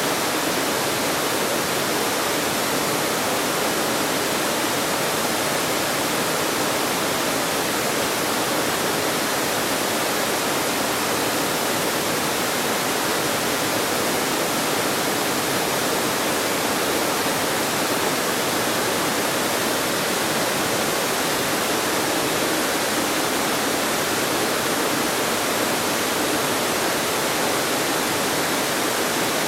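Creek waterfall cascading over rock ledges: a steady, even rush of falling water.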